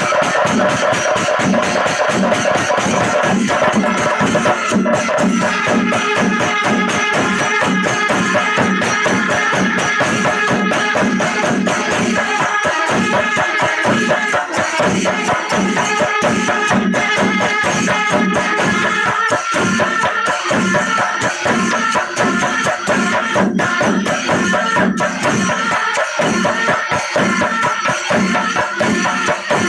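Pandimelam, a Kerala temple percussion ensemble: many chenda drums beaten with sticks in a fast, dense rhythm, with ilathalam cymbals and sustained kurumkuzhal pipe tones over the drumming.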